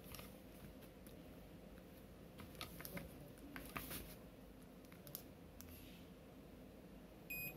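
Faint scattered clicks of multimeter probe tips and a mains plug being handled. Near the end a digital multimeter's continuity buzzer starts a steady high beep, showing the conductor under test is unbroken.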